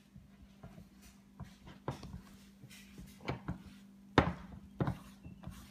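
Hands kneading soft pizza dough in a ceramic bowl: irregular soft slaps and knocks of the dough and hand against the bowl, the loudest about four seconds in.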